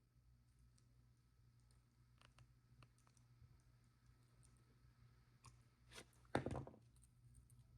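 Faint scattered clicks of jewellery pliers and small metal findings being handled, with a soft thump a little over six seconds in.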